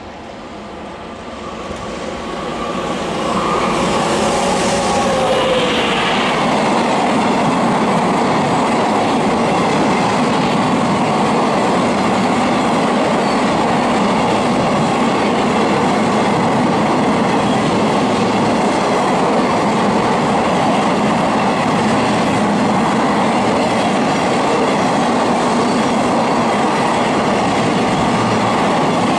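A freight train passing close by: the locomotive's approach builds over the first few seconds, with a tone falling in pitch as it goes by. Then a long string of empty flat wagons rolls past, with a steady rumble and clatter of wheels over the rails.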